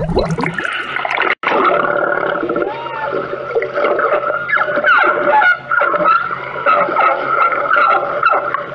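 Recorded whale song used as an underwater soundtrack: many wavering, gliding calls over a steady hum, broken by a brief dropout about one and a half seconds in.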